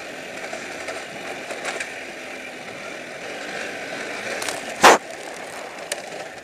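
Honda C90 Cub's small four-stroke single-cylinder engine running steadily as the bike rides along a rough gravel track. A single sharp knock sounds about five seconds in.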